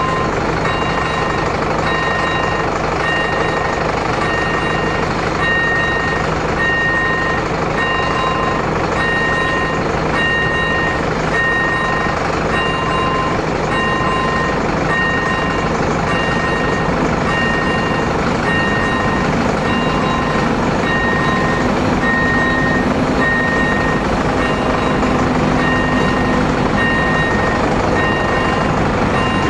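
A level crossing's electronic warning bell (AŽD ZV01) ringing steadily, about one ring a second. From about two-thirds of the way in, the low drone of an approaching ČD class 754 'Brejlovec' diesel locomotive joins it.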